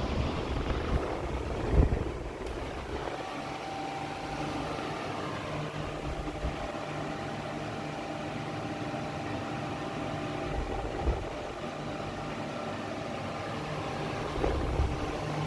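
Britânia BVT400 40 cm table fan running steadily: a whoosh of air from the blade over a low, steady motor hum. The blade is noisy. A couple of brief low thumps break in.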